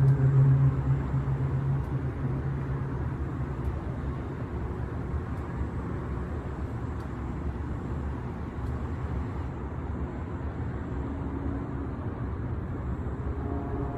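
Low, steady outdoor hum of unknown origin: several held pitched tones over a rumbling drone, the tones strongest in the first couple of seconds, then fading into the rumble and coming back faintly near the end. No machinery or construction is nearby to account for it.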